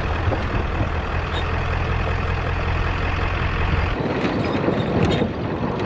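Diesel pickup truck with a truck camper driving slowly on a soft sandy trail, the engine giving a steady low drone. About four seconds in the low drone drops away and a rougher, irregular noise from the moving truck takes over.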